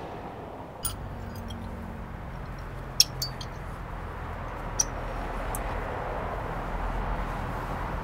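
A few short, sharp metallic clicks from a BMW X5 E53 rear brake caliper and pads being handled and fitted against the caliper bracket, the loudest about three seconds in, over a steady low hum.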